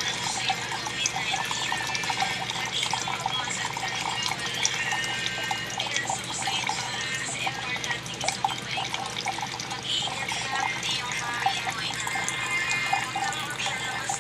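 Water pouring steadily, splashing and bubbling with many small drips and crackles.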